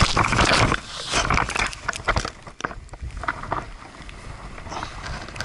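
Powder snow scraping and rustling over a helmet camera's microphone as a skier goes down in deep snow, with irregular knocks and crunches, louder in the first second or so and then quieter.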